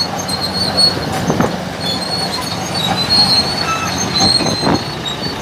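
Heavy diesel truck idling, with short high metallic squeals coming and going over the steady engine hum.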